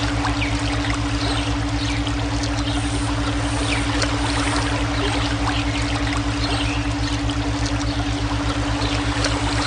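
Running stream water trickling and splashing, layered with a steady electronic tone and a fast-pulsing low drone of brainwave tones.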